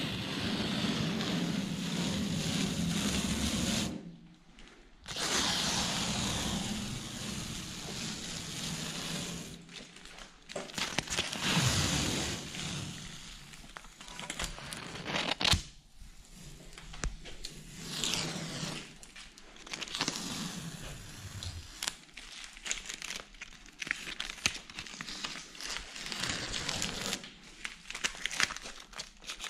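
Blue painter's tape being peeled off a painted aluminium boat hull: a run of tearing strips and crinkling as the used tape is scrunched up in the hand, with a brief pause about four seconds in.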